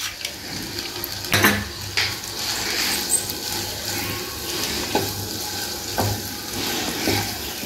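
Wooden spatula stirring fusilli pasta in tomato sauce in a nonstick frying pan, with a steady sizzle and several knocks and scrapes of the spatula against the pan.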